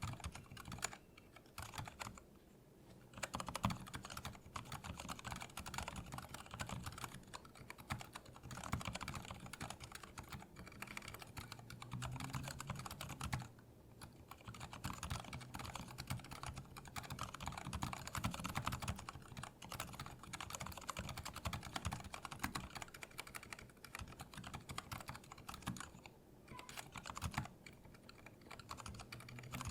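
Continuous typing on a Lily58 Pro split keyboard with Cherry MX Silent Red switches in a 3D-printed case: a dense stream of soft, damped keystrokes, with a couple of brief pauses.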